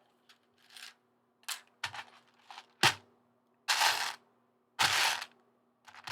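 Small plastic building-brick pieces clicking and rattling as they are picked through and set down. There is one sharp click just before the midpoint and two longer rattling bursts of about half a second each after it.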